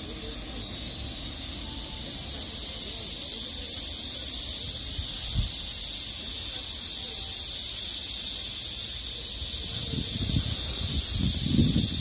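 A steady, high-pitched insect chorus, a shrill continuous hiss that grows a little louder about three seconds in. A low rumble comes in near the end.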